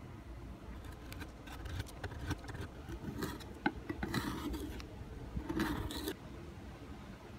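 Metal putty knife scraping stripper-softened paint and veneer off a plywood seat, in a couple of scraping strokes with small clicks and scratches between them.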